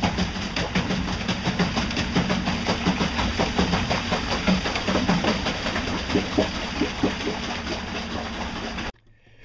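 Golden Motor L-05 electric outboard running under way with a steady hum and a rapid rattle of vibration, because its mounting clamp has worked loose on the boat's transom. The sound cuts off suddenly near the end.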